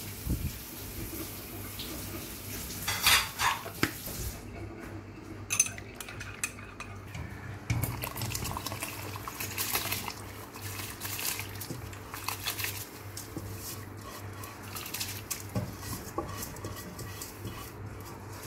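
Irregular kitchen clatter: a steel spoon clinking in a small glass bowl, then rice being tipped from a colander into a large steel pot of stock, the cookware knocking and scraping.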